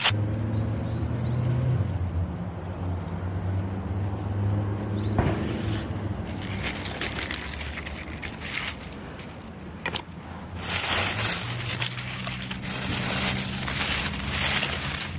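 Dry fallen leaves rustling and crackling as they are moved close to the microphone, loudest near the end, with a few sharp snaps. A steady low hum runs underneath, fading for a while in the middle.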